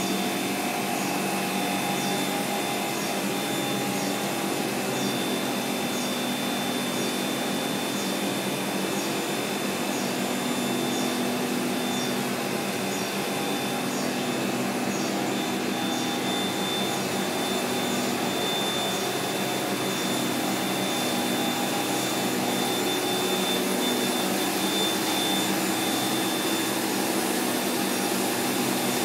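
Semiconductor fab equipment running: a steady drone of fans and machinery with several steady hums, and a faint high ticking a little more than once a second.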